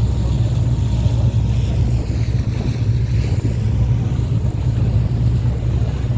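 Boat engine running steadily under way, a loud constant low drone with a fainter hiss above it.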